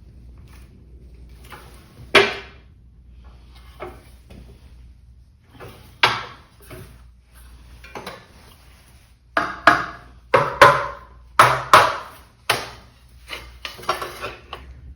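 Sheet-steel clanks and knocks from folding 18- and 16-gauge drawer faces on a flange brake, each strike ringing briefly. A few single knocks come first, then a quick run of loud clanks about two thirds of the way in, followed by lighter ones.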